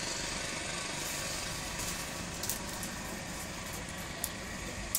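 A few light clicks of thin bamboo strips being woven by hand into a mat, over a steady background hum.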